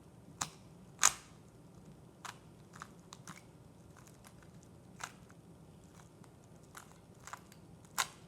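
Plastic Rubik's Cube being twisted by hand, its layers clacking in irregular sharp clicks, the loudest about a second in.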